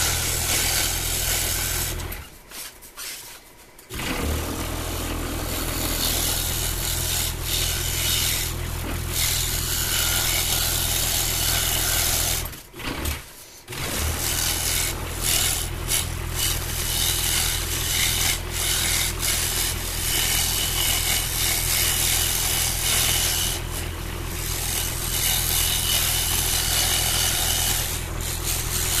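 Scroll saw running with its reverse-tooth blade cutting through thin wood: a steady motor hum under the rasp of the blade in the cut. The sound drops away briefly twice, about two seconds in and again near the middle.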